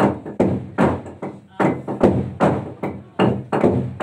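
Large wooden log drum, a hollowed tree trunk, beaten in unison by a line of men with wooden beaters: heavy strikes in a steady rhythm, about two and a half a second, each ringing briefly.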